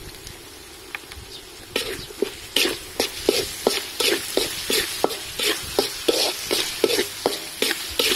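Metal spatula scraping and stirring a spice paste frying in oil in a metal pan: quick strokes, about three a second, beginning about two seconds in, over a low sizzle.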